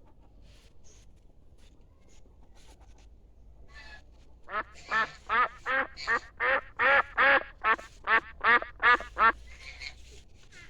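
Domestic duck quacking: a rapid run of about thirteen short, harsh quacks, roughly two and a half a second, starting a little under halfway through after a quieter stretch.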